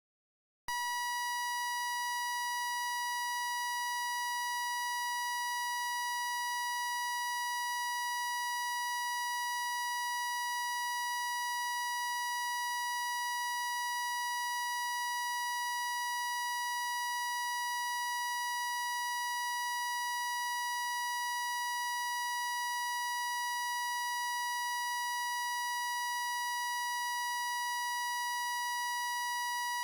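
A continuous, unchanging electronic beep tone, one steady high pitch with overtones, starting just under a second in and holding without a break.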